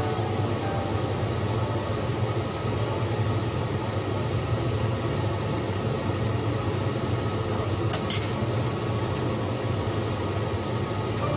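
Metal spoon stirring a pot of simmering stew in a stone-coated pot, over a steady hiss, with one sharp click about eight seconds in.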